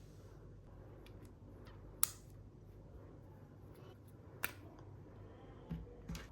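Four sharp clicks of small hard objects being handled, the loudest about two seconds in and two softer ones near the end, over faint room tone.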